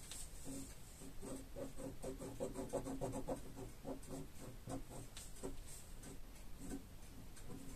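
Ballpoint pen scratching on paper in quick back-and-forth hatching strokes, densest and loudest in a rapid run between about one and a half and three and a half seconds in.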